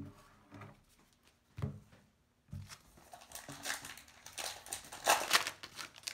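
A Topps Heritage baseball card pack wrapper being torn open and crinkled. The crinkling starts about two and a half seconds in and is loudest near the end. A few soft knocks of cards being handled on the table come before it.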